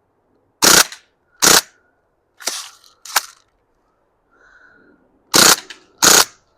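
CO2-powered AR-style BB pistol firing six single shots, sharp pops in two close pairs with two softer pops in between.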